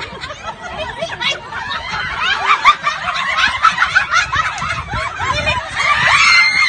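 A group of people laughing together, many voices overlapping in high, breathy bursts, growing louder near the end.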